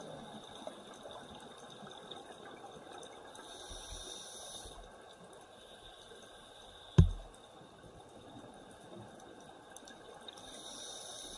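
Underwater recording of a scuba diver breathing: two bursts of exhaled bubbles from the regulator, each about a second long, over a steady faint hiss. A single sharp thump, the loudest sound, comes about two-thirds of the way through.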